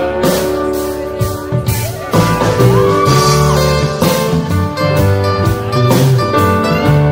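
Live band music from a string band with drums: guitar and other strings playing over a steady drum beat, about one stroke a second.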